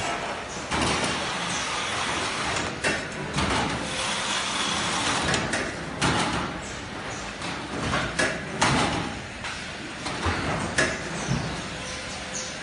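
Automatic case-packing line running: a steady mechanical noise from the carton sealer and roller conveyors, broken by irregular clunks and knocks every second or two as cartons are handled and pushed along the rollers.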